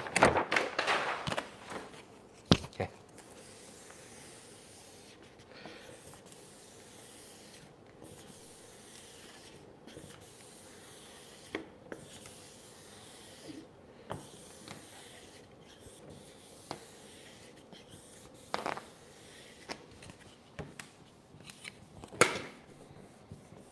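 Faint rubbing and scraping as adhesive vinyl wrap is pressed and smoothed down onto a mini fridge with up-and-down strokes. A sharp click comes a couple of seconds in, and there are two louder strokes near the end.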